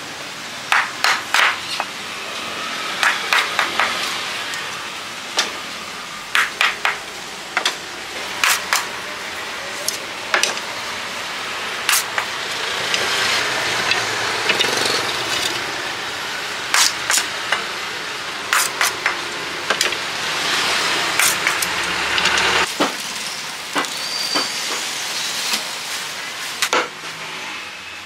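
Cleaver chopping and splitting bamboo: many sharp, irregular knocks, sometimes in quick pairs or triplets, over a steady background hum.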